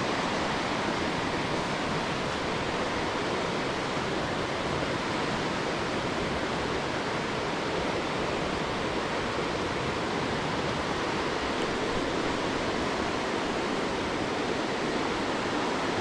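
River rapids rushing steadily over rocks, an even, unbroken sound of white water.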